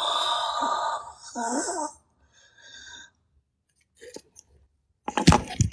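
A man's loud, strained breathy exhale and a short groan, then a few sharp knocks or thumps near the end.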